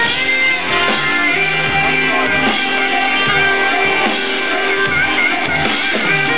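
Loud live electronic dance music through a festival PA, held melodic notes over a pulsing beat, recorded from close to the stage.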